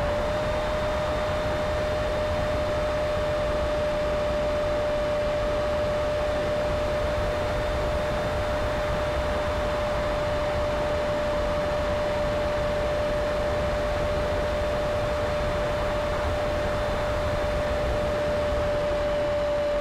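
RC plane's motor and propeller whining at one steady pitch over a constant rush of air, recorded by the camera on board in flight.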